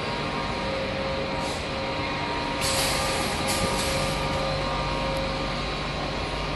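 Steady factory noise of a running HDPE pipe extrusion line: a continuous machine hum with faint steady motor tones, broken by a short burst of hiss about a second and a half in and a longer one around the middle.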